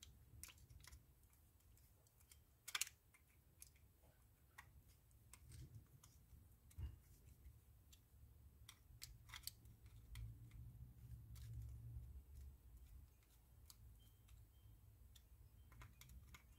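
Faint, scattered small clicks and ticks of a screwdriver blade seating in and turning the bridge screws of a vintage Penn 210 reel, tightened gently to snug; otherwise near silence over a low hum.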